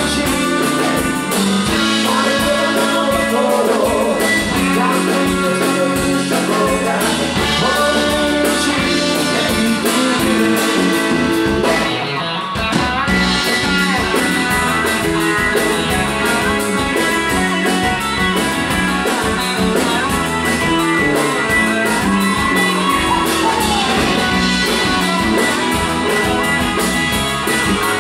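Live rock band playing an upbeat song on electric guitar, electric bass and drum kit, with a short break around twelve seconds in before the full band comes back in.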